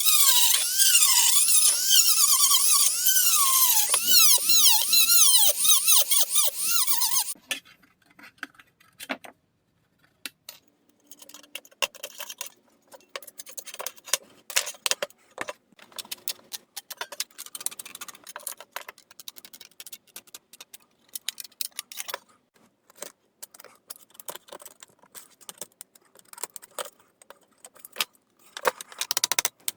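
A power tool cutting sheet metal, a high whine that wavers and sags under load over a harsh hiss, cutting the LCD window in a scrap-metal control panel. It stops about seven seconds in, followed by scattered light clicks and scrapes of metal being handled.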